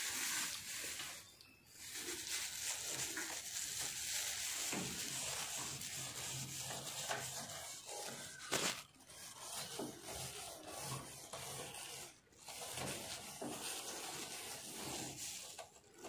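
Scrubbing on a refrigerator door's rubber gasket, an irregular scratchy rubbing with a few short pauses.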